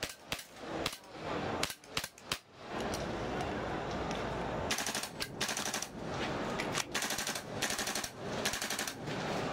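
CO2-powered gas blowback airsoft guns firing: a few separate sharp shots in the first two seconds or so, then quick rapid strings of shots from about five seconds in.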